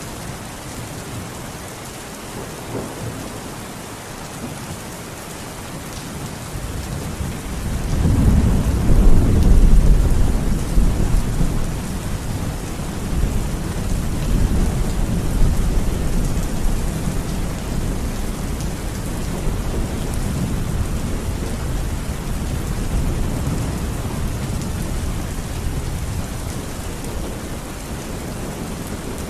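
Steady rain falling, with a long roll of thunder that builds about seven seconds in, is loudest a few seconds later and rumbles on as it slowly fades.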